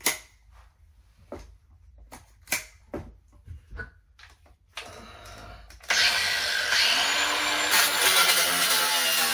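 A few sharp metallic clicks as the metal mesh is handled. Then, about six seconds in, an angle grinder cuts steadily into the steel shower pan lath, loud and continuous.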